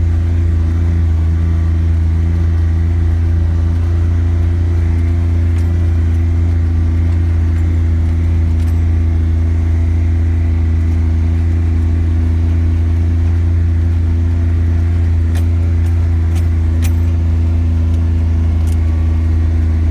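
Polaris Ranger Diesel's Kohler 1028 cc three-cylinder diesel engine running steadily as the UTV drives, heard from inside the cab. A few sharp clicks come in the last few seconds.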